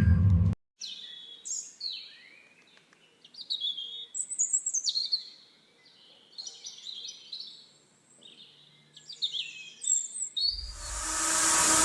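Small birds chirping and singing in short high phrases, some sweeping downward in pitch. Near the end a loud rushing hiss swells in over them.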